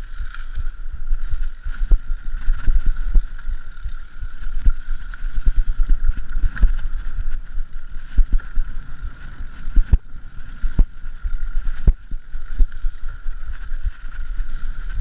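Wind rumbling on the microphone of a moving camera, with frequent sharp knocks and rattles and a steady high hum.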